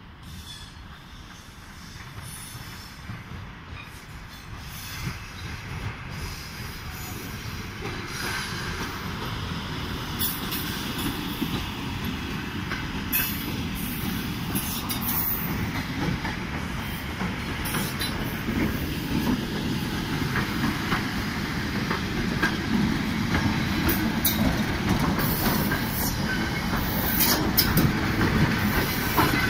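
ED4M electric multiple-unit commuter train approaching and running past, the rumble of its wheels on the rails growing steadily louder, with brief high-pitched wheel squeals and clicks now and then.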